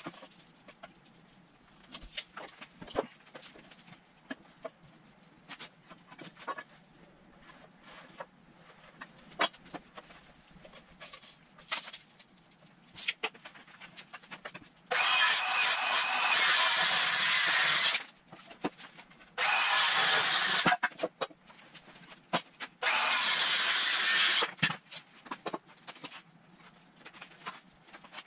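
Power drill driving construction screws into pine lumber: three loud steady runs, the first about three seconds long and the next two shorter. Between them come scattered clicks and knocks of boards and screws being handled.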